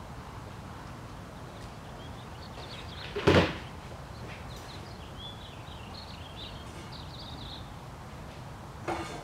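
A loud knock about three seconds in and a shorter rattling knock near the end, over steady background noise with small birds chirping.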